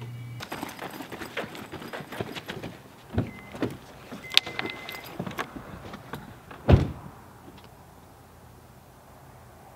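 A person getting into a car: rustling and clicking handling sounds, a short high electronic beep from the car, then the car door shutting with a loud thud about seven seconds in.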